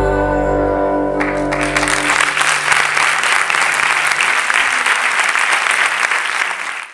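The last held keyboard chord of the song dies away while audience applause breaks out about a second in and carries on loud.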